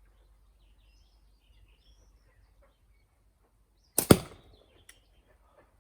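A slingshot shot: a sharp double crack about four seconds in, the bands' snap and the ammo striking the homemade catch-box target. The shot blows out the candle instead of setting off the target's lighter, so there is no explosion. Faint bird chirps come before it.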